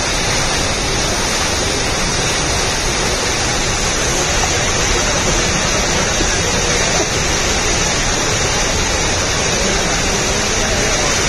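Water gushing and spraying out of a burst 72-inch municipal water main, a steady, unbroken rush.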